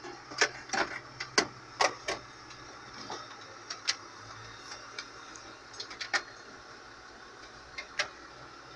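Laptop keys and touchpad clicked in short, sharp, irregular clicks: a quick run in the first two seconds, then scattered clicks a few seconds apart.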